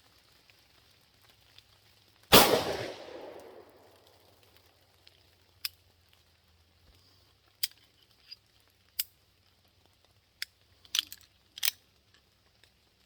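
A single pistol shot from a prototype pistol, its echo dying away over about a second and a half. It is followed by a string of short, sharp clicks over the next several seconds.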